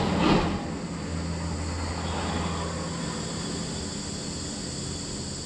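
Steady vehicle running noise: a low engine hum over an even rush of road and wind noise, with a brief louder whoosh at the start.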